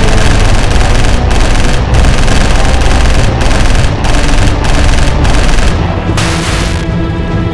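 Rapid automatic gunfire, a film sound effect, in long bursts broken by short pauses, over a music score. Near the end the firing stops and the music carries on.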